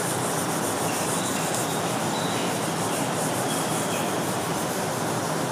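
Whiteboard eraser rubbing across the board, wiping off marker writing, over a steady background hiss.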